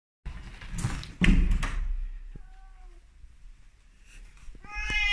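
Rustling and a sharp thump about a second in, then a short faint meow. Near the end a Korat cat starts a long, loud meow.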